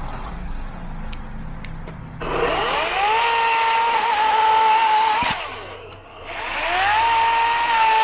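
EGO 18-inch 56-volt battery chainsaw's electric motor spinning up with a rising whine about two seconds in and cutting through a log at a steady pitch. It eases off briefly about six seconds in, then spins back up and carries on cutting.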